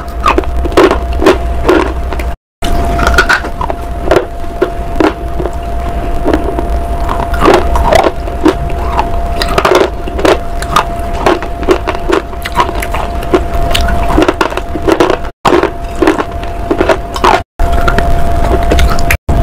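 Close-miked crunching and chewing: a person biting into and chewing crunchy bars, with many sharp cracks and clicks coming several a second. A steady thin tone and low hum run underneath, and the sound cuts out briefly a few times.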